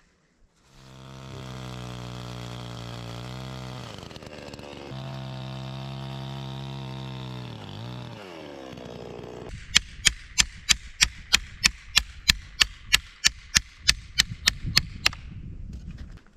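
Chainsaw engine running steadily for about nine seconds, its pitch sagging briefly twice. It stops, and a fast, even run of sharp knocks follows at about four a second for some five seconds.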